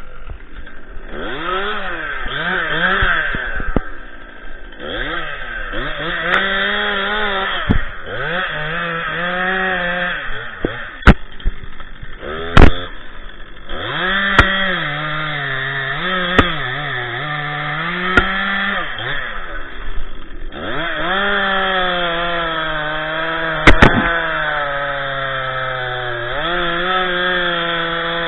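Stihl MS 261 two-stroke chainsaw cutting through a spruce log in several passes: the engine revs up, and its pitch sags and recovers as the chain bites into the wood, dropping back briefly between passes. A few sharp knocks stand out, the loudest about halfway through.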